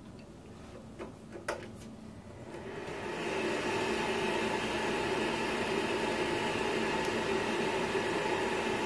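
A couple of clicks as the power cord goes into a Cisco Catalyst 3750G network switch. Its cooling fans then spin up over about a second to a steady, loud whir with several held humming tones. This is the fans running at full speed on power-up, which the owner calls a bit of noise to start with.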